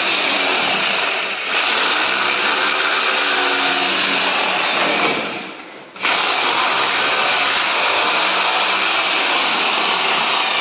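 Corded electric drill running under load, boring through a PVC wall panel into the wall behind. The motor dies away about five seconds in, then starts again abruptly at full speed.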